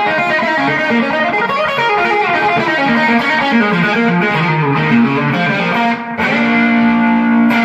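Electric guitar, a Stratocaster fitted with Jobe hybrid pickups, playing a quick run of single notes, then a chord held for over a second near the end that cuts off abruptly.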